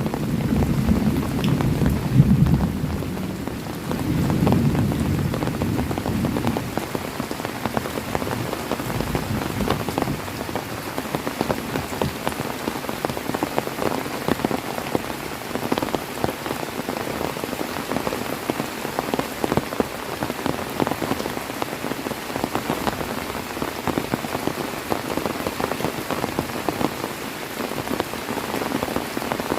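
Heavy rain falling steadily, with many separate drop hits. A low rumble of thunder swells twice in the first few seconds and fades out.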